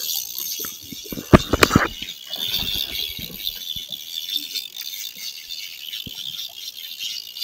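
Fishing reel being cranked against a hooked fish, its gears and line giving a steady fine whirr and rattle, with a few sharp knocks of the rod and reel handling about a second and a half in.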